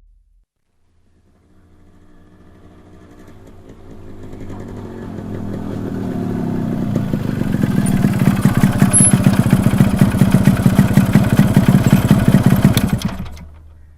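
A motorcycle approaching and growing louder as it slows down, its engine note falling, then running at a steady pulsing idle. Near the end the engine is switched off and cuts out suddenly.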